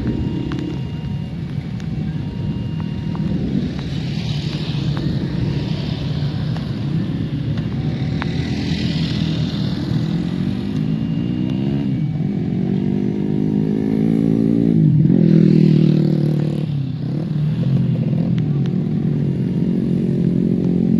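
A vehicle engine running and accelerating, its pitch rising, dropping sharply and climbing again several times in the second half, as at gear changes.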